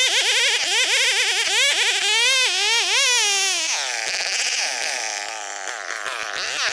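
Old two-stroke chainsaw running under load as it cuts through Borneo ironwood, its buzzing engine note rising and falling rapidly as the chain bites and frees.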